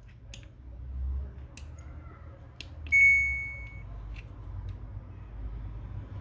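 A Samsung washing-machine control board's buzzer beeps once, a single high tone that fades away over under a second. A few light clicks from the boards and connectors being handled come before and after it.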